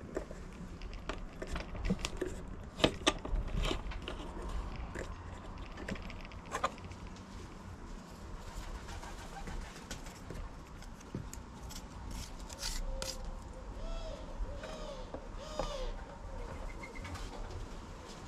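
Sharp clicks and knocks of a plastic workpiece being lifted and handled on a metal drill-press table, loudest about three seconds in. Later a pigeon coos several times over a low steady rumble.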